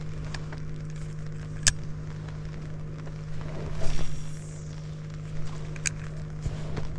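Steady low hum of a small motor, with a few sharp clicks and a brief rush of noise about four seconds in.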